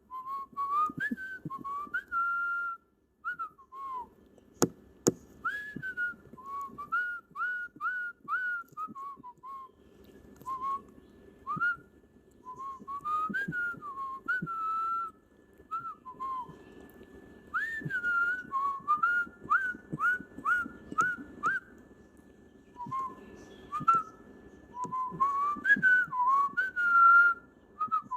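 Cockatiel whistling its song: phrases of short, clear, mostly upward-slurred whistles, repeated with brief pauses between them.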